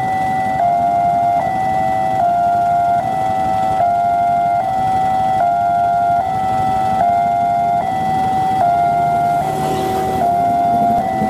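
Railway level-crossing alarm sounding an electronic two-tone warning, high and low tones alternating about every 0.8 s, while the red flashers blink: the signal that a train is approaching and the crossing is closing. A short burst of traffic noise rises under it near the end.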